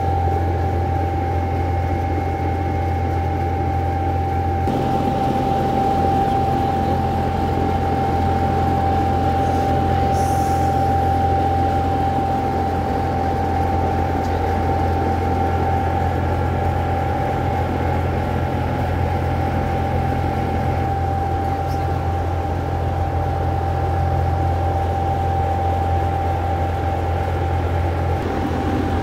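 Steady machine hum with a constant high whine over a low drone, from the greenhouse's climate-control equipment running.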